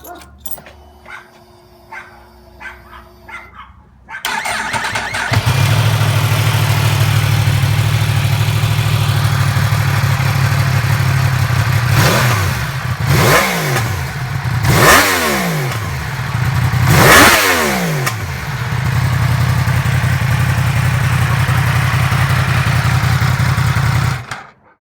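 Yamaha YZF-R1 RN32 crossplane inline-four sportbike engine: a few faint clicks, then it starts about four seconds in and idles steadily. Around the middle it is blipped four times, each rev rising and falling quickly, then it settles back to idle and cuts off suddenly near the end.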